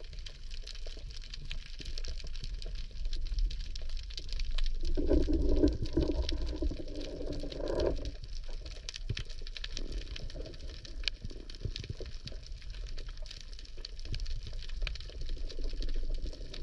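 Underwater ambience in shallow sea water: a steady crackle of countless tiny clicks over a low rumble. A humming drone comes in for about three seconds starting some five seconds in, and returns near the end.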